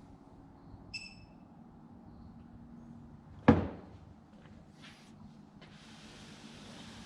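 Hand tools at work on an engine case: a short metallic ping about a second in, then a single sharp metal clank with a brief ring about halfway through, the loudest sound. A steady hiss follows under a low background hum.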